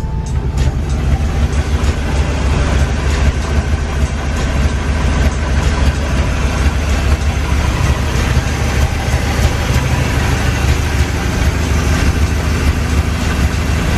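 1955 Chevrolet 3100 pickup's 265 small-block V8 running with a loud, steady low rumble; "sounds nasty". The engine is unrestored and its carburetor still needs work.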